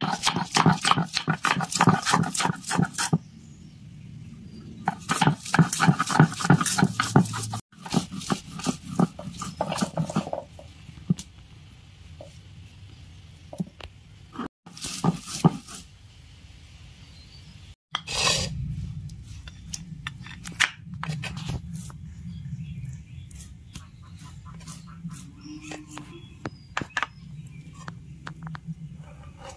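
Stone roller crushing and grinding garlic cloves and ginger on a flat grinding stone (sil-batta): rapid crunching and crackling in loud spells of a few seconds, broken by sudden cuts. Later there is quieter rubbing and scraping of stone on stone as the paste is worked fine.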